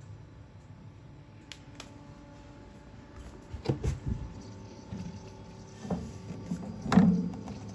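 The compressor of an Alpicool T50 portable compressor fridge runs with a low, steady hum. From about halfway through, several knocks and clatters of handling sound over it, and the loudest comes near the end.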